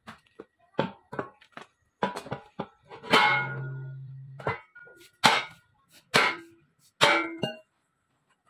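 Metal boat propeller knocking and clanging against a steel stand as it is handled and set in place: a run of sharp knocks, one loud clang about three seconds in that rings on for over a second, then three more ringing clangs.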